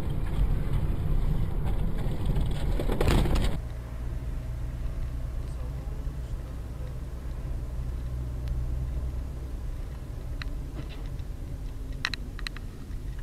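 Road and engine noise inside a moving car as picked up by a dashcam: a loud, even rushing for the first few seconds. It cuts suddenly to a quieter, steady low hum, with a few faint clicks near the end.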